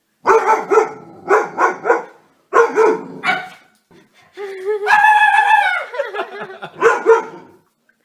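A dog barking repeatedly in short runs of barks, with one longer drawn-out call about five seconds in.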